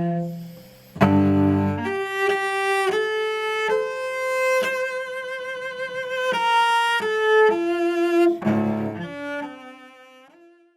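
Solo cello playing a slow melody of held notes with vibrato. Heavy low notes are struck about a second in and again near the end, and the last note fades away.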